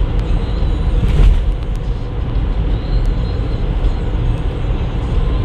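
Steady road and tyre noise of a car driving on an expressway, heard from inside the cabin, with a brief louder rush about a second in.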